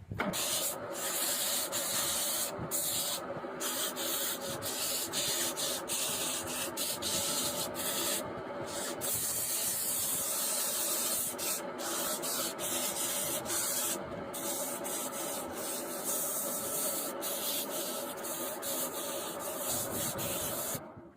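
Sandpaper held against a wooden bed leg spinning on a wood lathe, a steady abrasive hiss over the hum of the running lathe. The hiss drops out briefly several times, and everything stops abruptly near the end.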